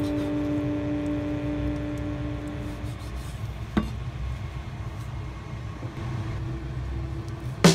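Background music in a lull: a held chord fades away over the first three seconds, leaving a low rumbling drone, with a single sharp click a little before four seconds in. Loud music starts again right at the end.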